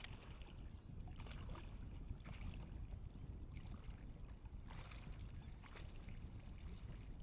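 Water sloshing and splashing in irregular swishes about once a second, as of someone wading through shallow water, over a low steady wind rumble on the microphone.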